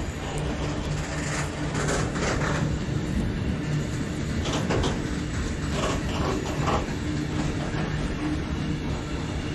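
A train running past with a steady low hum, and clusters of sharp clattering knocks about two, five and six to seven seconds in.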